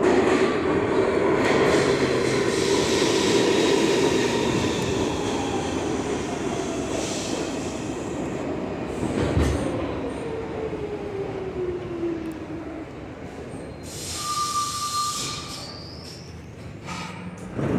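New York City subway train running through the station, wheels squealing on the rails over a dense rumble. A whine falls slowly in pitch part-way through, and a brief steady high tone sounds near the end.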